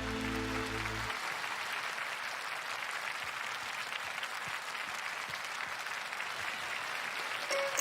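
The song's final held chord stops about a second in, and an audience breaks into steady applause.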